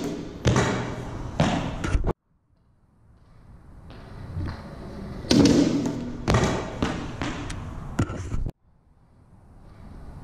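Pro stunt scooter wheels rolling on concrete and growing louder as the rider comes in, then a loud slam as the scooter takes the ramp and lands, followed by a run of clattering knocks from deck and wheels. This happens twice; each run cuts off suddenly, once early and again at about eight and a half seconds, and the rolling builds up again near the end.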